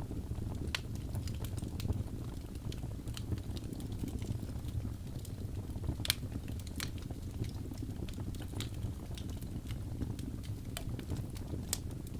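Wood fire burning in a fireplace: a steady low rumble of flames with scattered sharp crackles and pops from the logs, the loudest pop about six seconds in.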